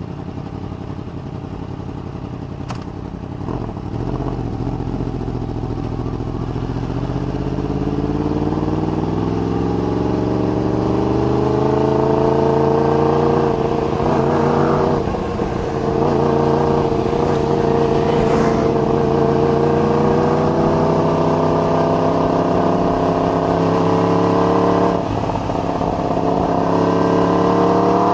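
Yamaha R1 crossplane inline-four engine pulling under load. Its pitch climbs steadily for about ten seconds, then holds high. Near the end it drops briefly and starts climbing again, as with an upshift.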